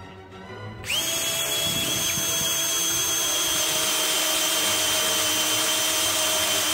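Cordless DeWalt drill starting about a second in and then running steadily at full speed with a constant high whine as it drills into a steel frame tube.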